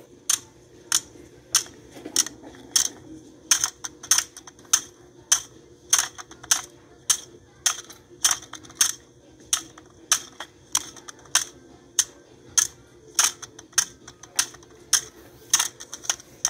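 Regular sharp mechanical clicks, about one and a half a second, evenly spaced, over a faint steady hum.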